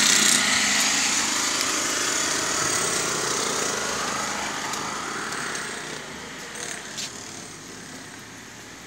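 Small excavator's engine running at work, loud at first and fading steadily over several seconds.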